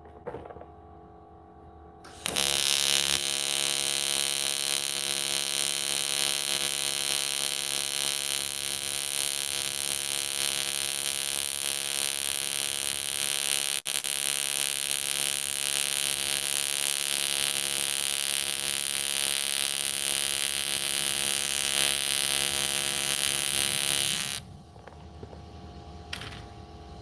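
AC TIG welding arc on aluminium, run at about 100 amps: a loud, steady electrical buzz with a hiss, starting about two seconds in and stopping about two and a half seconds before the end, with one momentary break about halfway through.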